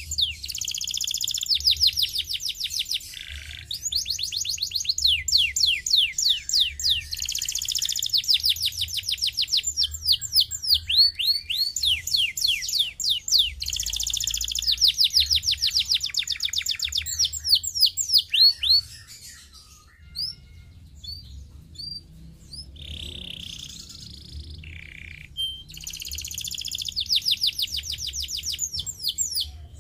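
Domestic canary singing in fast trilled rolls of rapidly repeated sweeping notes. About two-thirds of the way through, the song thins to sparse single chirps, and the trills come back near the end.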